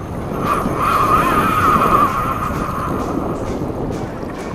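Boat's outboard motor running over choppy sea, with wind buffeting the microphone and a steady high whine throughout.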